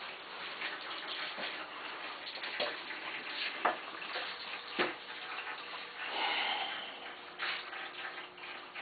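Cat water fountain running low on water, a steady splashing gurgle, with a few sharp clicks scattered through it.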